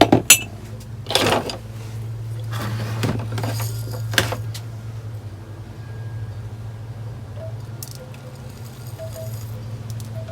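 Hands working a plant arrangement: a few sharp clicks and knocks in the first seconds, then softer rustling and clinking, over a steady low hum.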